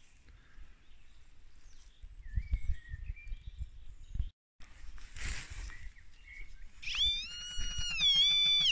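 XP MI-4 pinpointer sounding a continuous high electronic tone from about seven seconds in, its pitch wavering and dipping as the probe is moved through the soil over a buried metal target. Before that, faint thuds of digging and handling in loose soil.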